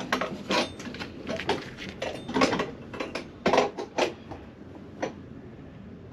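Irregular metallic clicks and scrapes, about seven in a few seconds, as copper nails in the boat's wooden frames are cut off flush.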